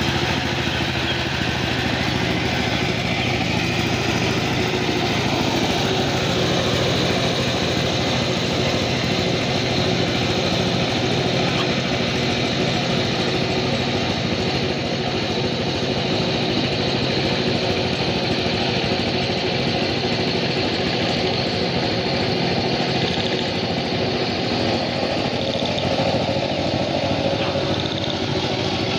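Two-wheel power tiller's engine running steadily under load while it cultivates a flooded paddy field, an even, unchanging engine note.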